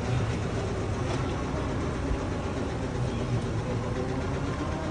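Buggy engine running steadily, a low even drone.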